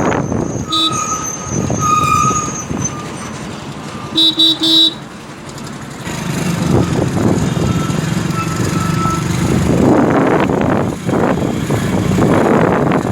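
Road traffic and vehicle noise, with a horn honked three quick times about four seconds in.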